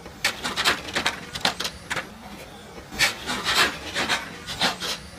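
Radio-controlled touring cars on an asphalt track, heard as a run of short rasping bursts of tyre scrub as they slide through the corners.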